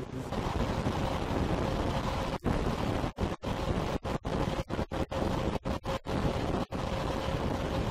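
Wind rushing over the microphone at the open window of a moving Tobu 5700 series electric train, over the train's running noise. The sound cuts out briefly again and again.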